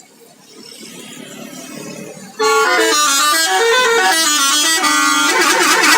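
Rising bus noise, then about two and a half seconds in a bus's telolet horn, a set of musical air horns, sounds loudly through a stepping multi-note tune. It breaks briefly and goes on with a second tune whose notes warble up and down.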